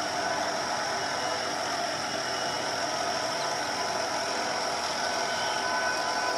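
Steady mechanical running noise with a constant high hiss, unchanging throughout; no horn sounds.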